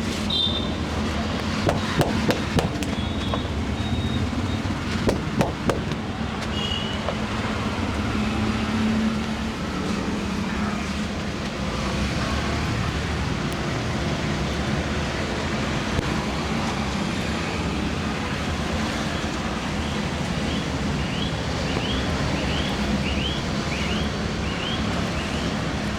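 Steady street traffic noise, with two brief clusters of sharp slaps from a barber's hands striking during a percussive massage, about two seconds in and again about five seconds in. Near the end comes a run of short, high, falling chirps, about two a second.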